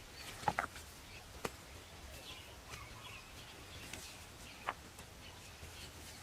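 A few scattered sharp taps over faint steady background noise.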